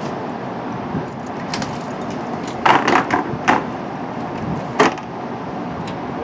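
Clanks and rattles of a metal bridge plate being lowered from a bilevel rail car's doorway onto the platform: a cluster of sharp clanks about two and a half to three and a half seconds in, and one more near five seconds, over the steady rumble of the standing train.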